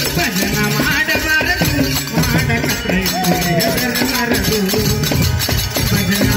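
Live Kannada folk devotional bhajan music: a melody over sustained low notes, with steady percussion keeping time.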